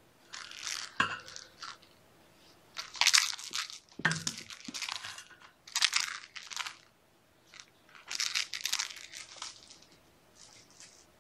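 Irregular bursts of scratchy crinkling and rustling, about six short clusters with quiet gaps between them, the loudest about three seconds in.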